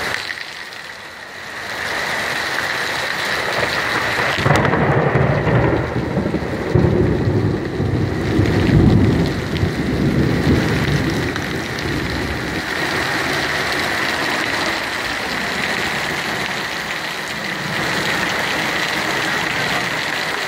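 Heavy rain pouring onto a wet road as a steady hiss. About four seconds in, a sudden crack opens a low rumble of thunder that swells for several seconds, then dies back into the rain.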